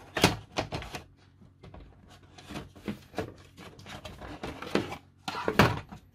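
A Blu-ray player's cover being pressed back onto its chassis and handled: a string of clicks, taps and knocks as the cover and its clips are pushed into place, with a louder knock near the end as the unit is turned over.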